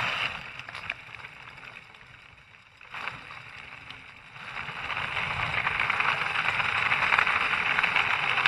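Electric drift trike rolling on asphalt: a steady rushing hiss of its wheels on the road, dying down about a second in and building back up from about four and a half seconds as it picks up speed again.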